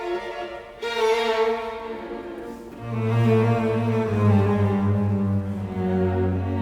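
Background music: a slow bowed-string melody in long held notes, with low, deep sustained notes coming in about three seconds in.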